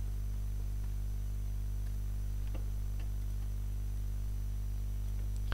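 Steady low electrical hum with faint hiss from the recording setup, with a couple of faint clicks about two and a half and three seconds in.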